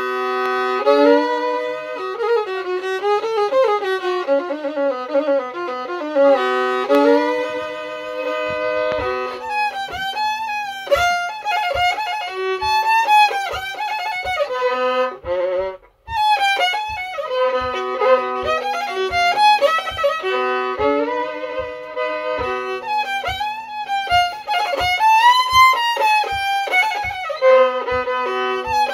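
Solo bowed violin tune on a homemade violin with a carved animal-head scroll, a low drone note sounding under the melody. The playing breaks off briefly about halfway, and from about a third of the way in low taps keep time about twice a second.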